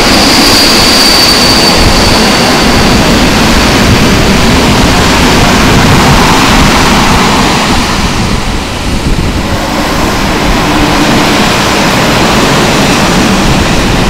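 Freight train wagons rolling past close by: a loud, steady rumble of steel wheels on the rails. A high squeal rings out in the first two seconds and fades.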